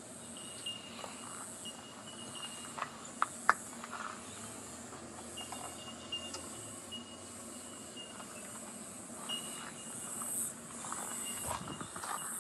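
Forest ambience: insects chirring in a high, pulsing band over a steady hiss, with a thin steady tone that comes and goes. A couple of sharp clicks sound about three seconds in.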